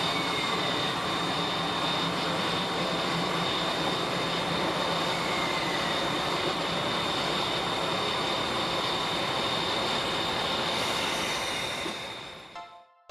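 C58 steam locomotive standing with steam escaping in a loud, steady hiss, which fades out near the end.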